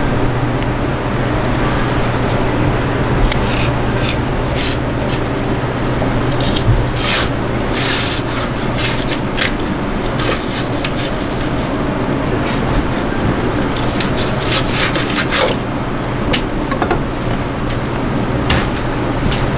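Fish knife slicing and scraping along a large yellowtail fillet on a plastic cutting board, in short scattered strokes that come thickest in the middle, over a steady low hum.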